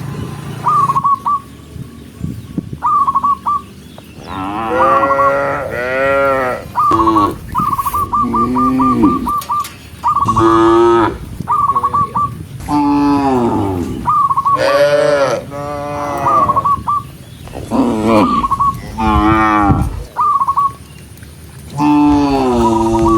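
Cattle mooing: many long, loud calls, some sliding down in pitch, overlapping and following one another from several animals.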